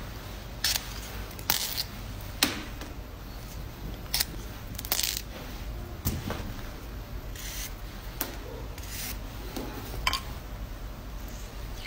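A knife cutting and scraping a fresh aloe vera leaf: a series of crisp snaps and short scrapes, about one every second.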